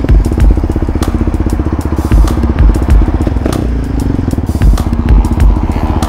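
Quad bike engine running as it is ridden on the road, a fast steady pulsing, with repeated low thumps.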